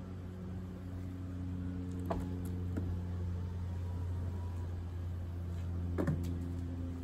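Car being driven: a steady low engine and road hum, with a few light knocks about two seconds in, just before three seconds, and a louder one about six seconds in.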